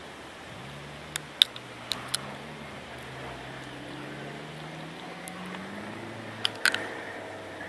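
Distant rally car engine running on a dirt track, its pitch climbing slowly as it accelerates. A few sharp clicks about a second in and again near the end stand out above it.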